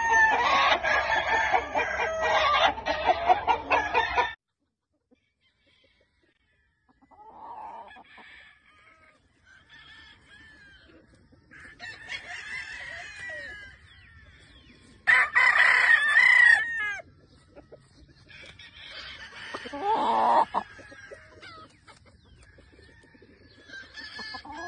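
Gamefowl roosters crowing, with chicken clucking between. A loud, drawn-out crow at the start cuts off abruptly about four seconds in, followed by a brief near-silence and then a run of shorter calls and crows, the loudest about two-thirds of the way through.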